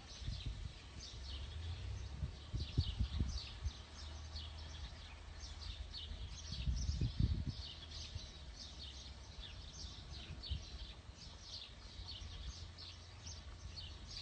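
Small birds chirping over and over in quick, short falling notes. Under them is a low rumble on the microphone that swells twice, about three and seven seconds in.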